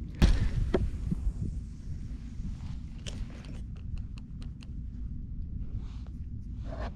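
A sharp knock just after the start, then small clicks and ticks from handling a fishing rod and reel in a kayak, with a steady low wind rumble on the microphone; the clicks come in a quick run a little past the middle.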